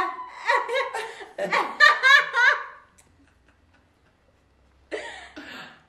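Adults laughing heartily in several quick bursts that die away about three seconds in. A short sound follows near the end.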